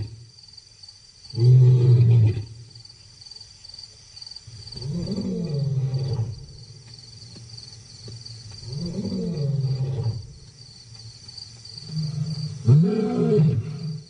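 Male lion roaring: a short loud call about a second and a half in, then three longer calls that each rise and fall in pitch, about four seconds apart.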